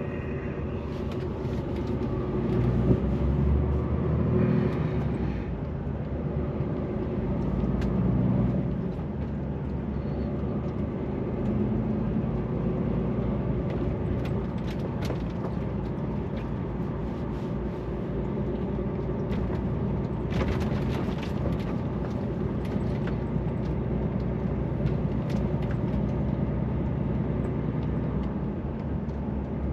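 DAF truck's diesel engine running while driving, heard inside the cab with road noise, swelling louder about three seconds in and again about eight seconds in. Scattered light clicks and rattles sound over it.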